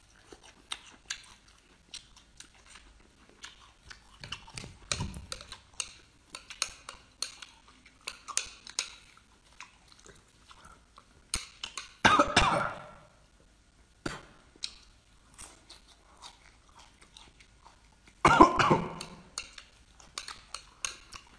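A person chewing and slurping raw marinated small white shrimp: a stream of small mouth clicks and smacks, with two louder, longer noisy bursts about 12 and 18 seconds in.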